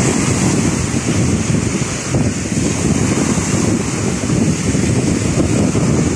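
Small waves breaking and washing up a sandy beach, with wind buffeting the microphone in a steady, uneven rumble.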